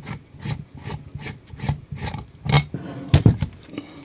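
Ratcheting rivet nut tool being worked loose and unthreaded from a freshly set M10 rivet nut in a steel plate: irregular clicking and scraping of metal parts, with two louder knocks a little past halfway.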